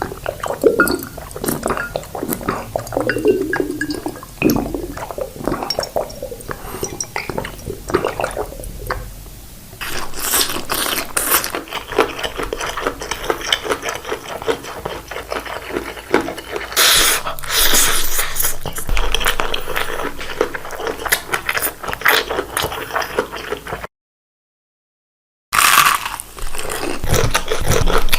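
Close-miked eating sounds of saucy spicy noodles and boiled eggs: wet squishing, smacking and scraping at first, turning to dense crackling from about ten seconds in. About three quarters of the way through, the sound drops to dead silence for a second and a half, then the eating sounds resume.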